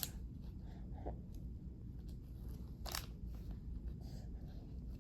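Quiet room tone: a low steady hum, with a faint short click about a second in and another about three seconds in.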